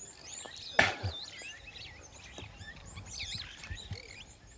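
Many birds chirping and calling at once, a chorus of short overlapping whistled notes. A single brief sharp noise, the loudest thing heard, comes about a second in.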